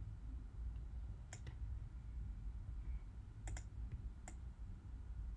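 A few sharp clicks from operating the computer while dragging warp pins, including a quick pair about three and a half seconds in, over a low steady hum.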